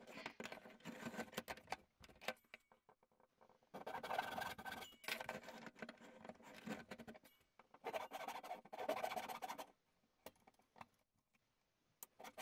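Hand-tool bench work on a padauk block: a run of knocks and clicks as the wood and tools are handled on the workbench, then three stretches of rough scraping, each a second or two long.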